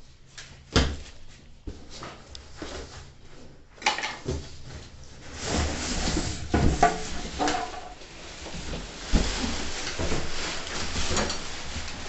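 Cardboard shipping carton being lifted up off a washing machine: a few sharp knocks early on, then the cardboard scraping and rubbing against the machine and its packaging from about halfway, with scattered bumps.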